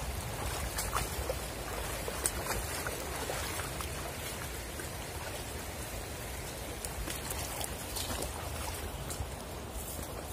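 Shallow stream running over rocks as a steady rushing hiss. Scattered light footsteps and rustles come through it as a person wades out and walks through grass and stones.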